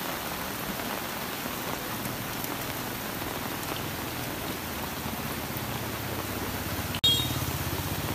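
Heavy rain falling steadily onto a flooded street, an even hiss of rain on water. A low hum joins about two thirds of the way in. The sound breaks off suddenly near the end and comes back louder.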